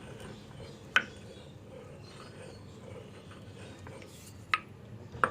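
Small stone mortar and pestle slowly grinding herb leaves into a wet paste: a faint, even rubbing with a few sharp clicks, one about a second in and two near the end.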